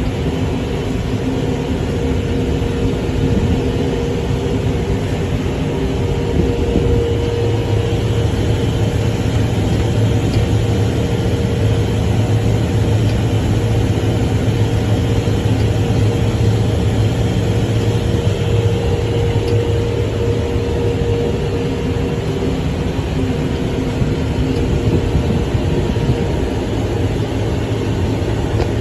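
Kubota tractor's diesel engine running steadily with a constant drone, heard from inside the cab while the tractor pulls a rotary rake.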